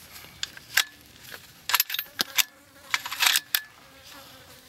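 A run of short metallic clicks and rattles from a bolt-action rifle being handled and its bolt worked to chamber a round; the bolt is not pushed fully closed.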